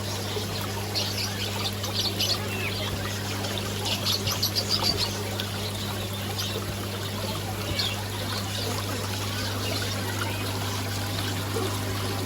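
Water trickling and splashing over a steady low hum, with clusters of short high chirps a second in, two seconds in and again around four to five seconds in.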